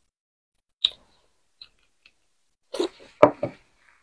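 Close-miked eating sounds from someone eating roasted beef bone marrow: a sharp click a little under a second in, a few faint ticks, then a short cluster of louder mouth sounds about three seconds in.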